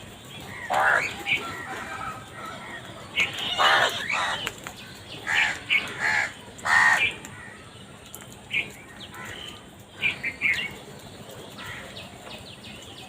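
Crows cawing: a run of loud harsh caws in the first seven seconds, then shorter, fainter calls.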